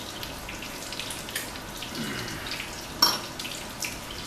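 Halibut pieces frying in a pan, a steady sizzle with small crackles. About three seconds in comes a single sharp clink with a brief ring, the loudest sound, as a wine glass is set down on the stone countertop.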